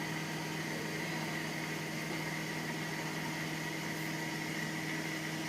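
Washing machine running on a quick wash cycle: a steady motor hum with a faint constant high whine.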